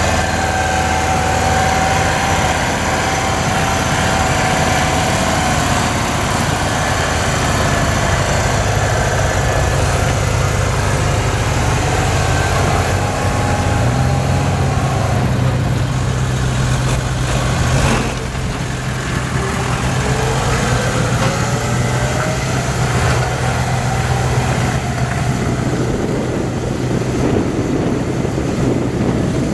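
Mercedes-Benz Unimog 421's 2.4-litre four-cylinder diesel engine running at low revs under load as the truck crawls over steep muddy off-road ground. The engine note steps up about halfway through, followed by a single knock and a faint whine rising in pitch.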